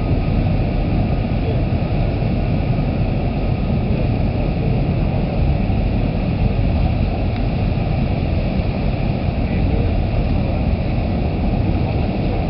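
Steady low rumble of the Commodore Clipper ro-ro ferry's engines as the ship manoeuvres in against the quay, with a faint steady whine above it.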